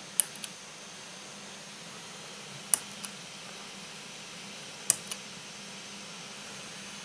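Push-button switch in the base of a small table lamp clicked three times, each a sharp click followed by a softer one as the button is pressed and released; the last press turns the lamp off.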